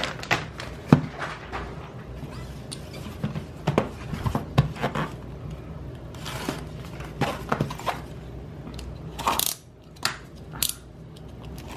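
Packaging and small plastic binders being unwrapped and handled: crinkling plastic wrap with scattered sharp clicks and light knocks, and a couple of louder crinkly rustles about six and nine seconds in.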